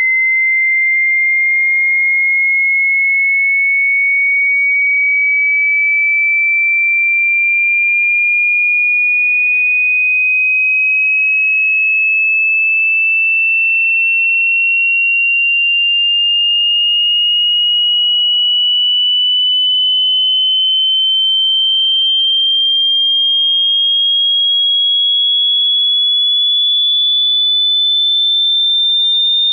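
Pure sine test tone of a hearing-test frequency sweep, rising slowly and steadily in pitch by nearly an octave at constant loudness.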